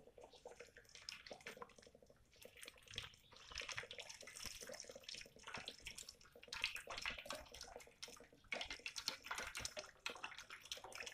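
Young coconut water pouring in a thin stream from a hole in a peeled green coconut into an aluminium saucepan of ground coffee, a steady trickling splash into the liquid.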